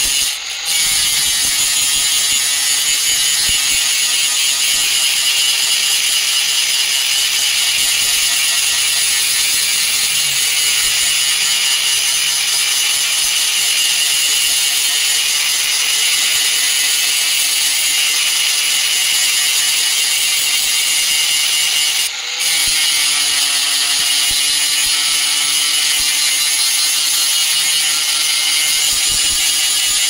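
Handheld angle grinder with an abrasive disc grinding steel: a loud, steady, high-pitched grind that dips briefly twice, just after the start and again about 22 seconds in.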